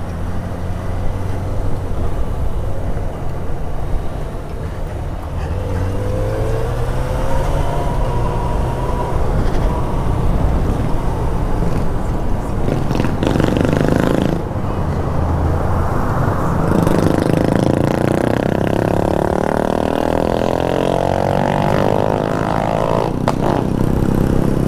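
Yamaha XJ6's 600 cc inline-four engine running under way with wind rushing over the microphone, accelerating with a rising pitch about six seconds in, briefly easing off near the middle, then pulling up in pitch again over several seconds near the end.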